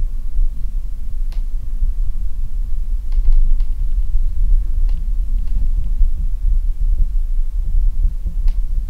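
Steady low rumble of handling noise on a handheld camera's microphone, with a few faint clicks.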